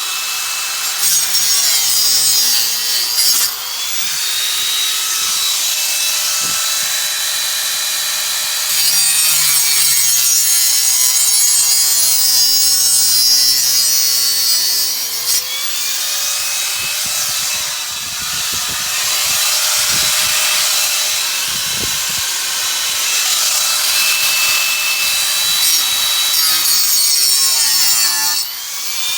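Power saw cutting through PVC pool pipe. It runs continuously with its pitch rising and falling as it cuts.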